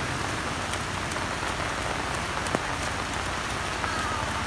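Steady rain falling on a wet artificial turf pitch, with a single sharp knock about two and a half seconds in.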